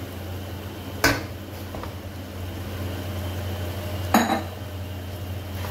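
Kitchenware knocking against a nonstick pot twice, about a second in and again about four seconds in, as boiled spaghetti is tipped in from a glass bowl; the second knock rings briefly. A steady low hum runs underneath.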